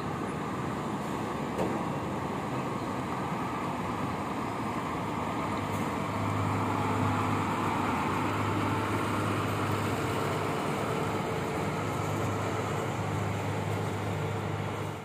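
Diesel coach engine running as the bus pulls away and passes close by, its low drone growing louder about halfway through.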